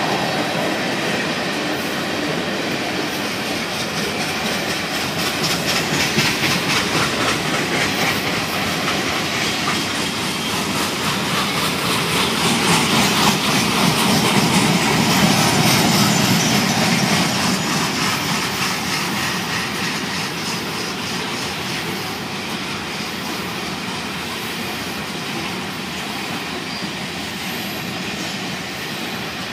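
Cars of a manifest freight train rolling past, wheels clacking rhythmically over the rail joints. The rumble swells louder about halfway through, then eases off.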